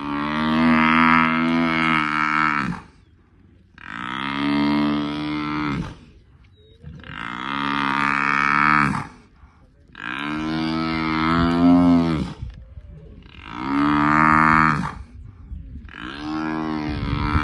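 African buffalo bull bellowing in distress while lionesses hold and bite it: six long, loud, low moaning calls, one about every three seconds.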